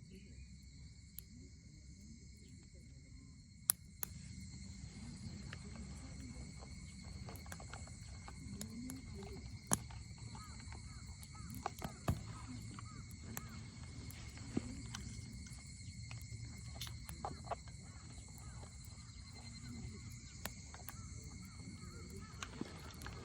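Wood bonfire crackling, with sharp pops scattered throughout, over a steady high chorus of crickets and a low murmur of distant voices.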